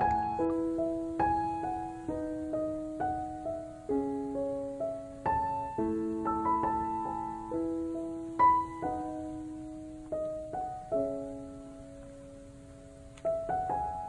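Slow background piano music, single notes struck and left to ring over held chords.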